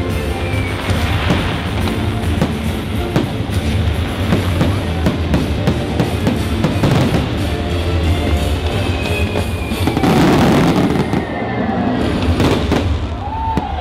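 Fireworks-show music with drums, loud and continuous, with fireworks shells bursting through it. A denser wash of bursts and crackle comes about ten seconds in.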